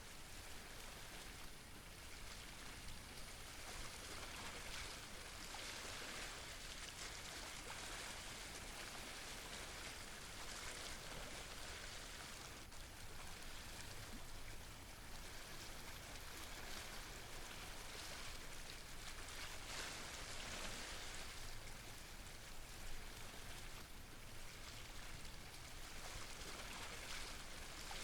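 Sea water washing and splashing over shore rocks: a steady rushing hiss that swells and eases every few seconds.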